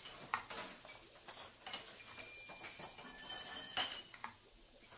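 Light clinking and tapping of kitchenware, with a few short ringing tones; the clinks come thickest about three and a half seconds in.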